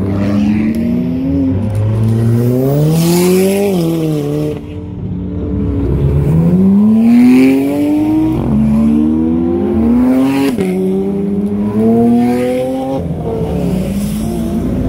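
Sports car engines accelerating hard, one pull after another, the pitch climbing through each gear and dropping sharply at each shift.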